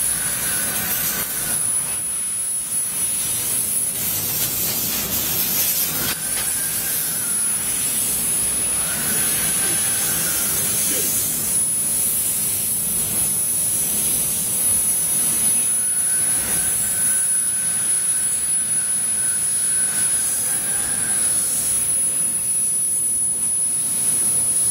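CNC laser cutter cutting MDF: a steady rushing hiss of blowing air, with a thin high whine and a fainter tone that comes and goes as the cutting head moves.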